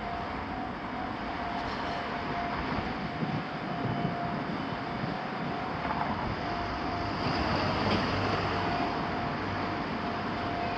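Level crossing warning bell ringing, a steady repeated tone, over the running noise of a Keihan Ishiyama-Sakamoto Line train going through the crossing, which swells about two-thirds of the way in.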